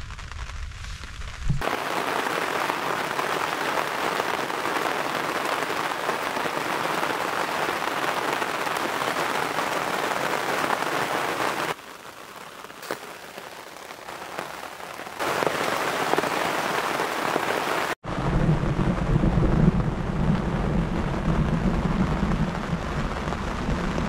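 Heavy rain from a thunderstorm falling steadily, an even hiss. It drops quieter for a few seconds about twelve seconds in, and after an abrupt cut near eighteen seconds a lower rumble sounds along with the rain.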